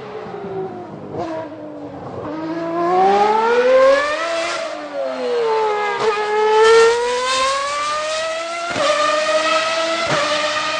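Old V12 Formula One engine revving under acceleration. Its pitch climbs steadily twice with a dip between, then breaks sharply a few times near the end at the gear changes.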